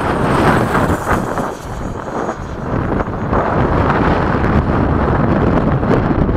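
Wind buffeting the microphone over the rushing whine of the 80mm electric ducted fan on a Freewing F-5 model jet in flight. A faint high whine falls in pitch over the first two seconds as the jet passes.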